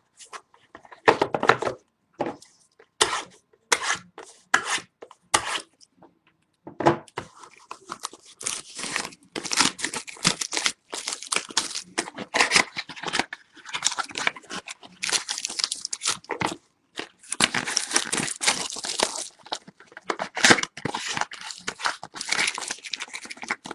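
Sports-card pack wrapper being torn open and crinkled by hand: scattered short rips and rustles at first, then almost continuous crinkling from about seven seconds in.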